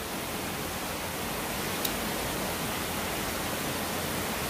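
Steady, even outdoor background hiss, with a faint click about two seconds in.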